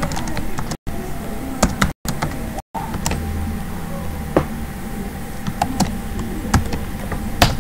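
Computer keyboard keystrokes: scattered, irregular clicks a few at a time, over a steady background hum. The sound cuts out completely three times, briefly, in the first few seconds.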